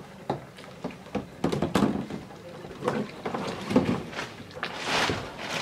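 Water splashing and irregular thumps of a body against a Feelfree sit-on-top kayak's hull as a swimmer climbs back aboard from deep water, the biggest splash about five seconds in.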